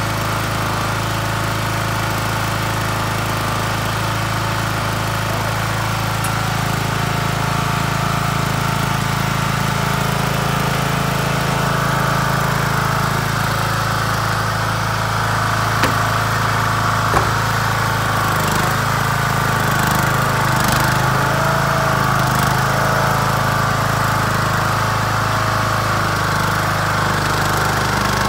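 Old Craftsman riding lawn mower's small engine running steadily, its pitch wavering a little in the second half. Two short sharp knocks come about 16 and 17 seconds in.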